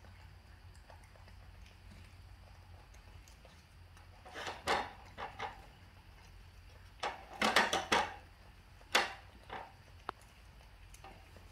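Scattered short knocks and rustles, as of objects being handled, over a low steady hum. They start a little before halfway, the loudest come in a quick cluster a little past halfway, and a few single sharp knocks follow.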